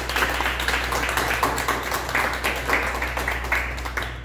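A small audience applauding, many hands clapping in a dense, irregular run of claps.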